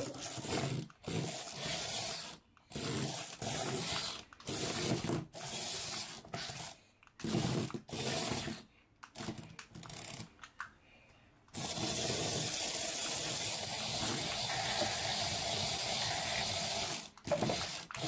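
Remote-control poop toy's small drive motor whirring as it drives over a wooden tabletop, in short stop-start bursts, then running steadily for about five seconds from a little after the middle.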